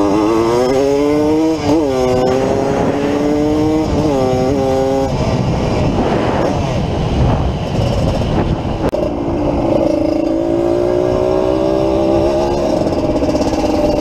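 Yamaha DT180's single-cylinder two-stroke engine under way. Its pitch climbs as it accelerates, with brief dips at gear changes. About five seconds in, the engine note drops away under rough wind and road noise, and about ten seconds in a steady cruising note returns.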